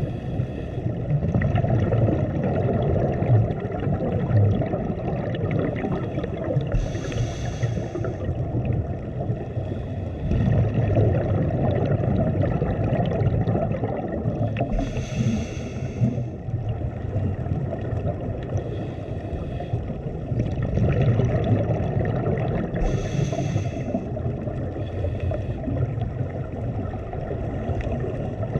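Underwater ambience through a camera housing: a steady low rush of water, broken about every eight seconds by a short hissing burst of scuba regulator exhaust bubbles, three times in all.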